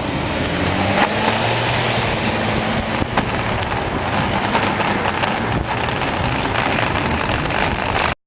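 Road traffic noise: a motor vehicle running close by, with a steady rush of tyre and wind noise and a few short clicks, cutting off abruptly near the end.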